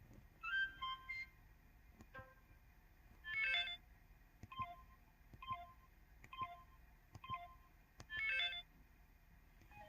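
MS700 mobile phone's 'Classic' menu and button tones played in turn. A quick run of rising notes comes first, then a short chime, four identical two-note key beeps about a second apart, and another chime near the end, with a few faint clicks between them.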